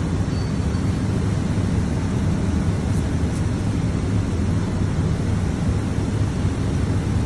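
Steady low rumbling background noise of a factory workshop, even in level throughout. Two faint light ticks come about three seconds in.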